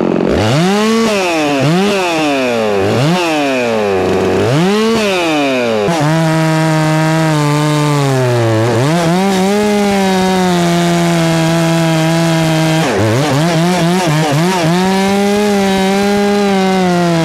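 Two-stroke chainsaw, a FarmMac F 669, revved up and down about four times, then held at full throttle cutting hard pecan wood. Its pitch sags and recovers twice under the load.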